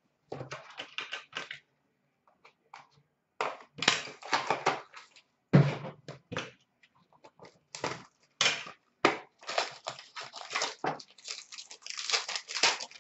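Hockey card packaging being opened by hand: a cardboard box and its pack wrappers torn and crinkled in a run of short, irregular rips and rustles with brief pauses between them.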